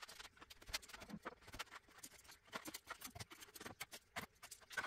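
Faint, irregular clicks and light taps of small objects being handled and set down on a vanity.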